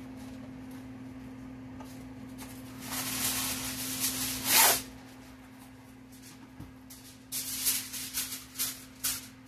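Aluminum foil pulled off the roll with a crackly rustle, then a sharper rip as it is torn off the box's edge about halfway through, followed near the end by several short crinkles as the sheet is handled. A steady low hum sits underneath.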